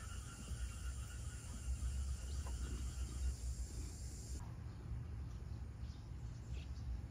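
Quiet outdoor ambience: a steady low rumble under a faint hiss, with faint high chirping in the first few seconds. The hiss drops away abruptly a little past four seconds in.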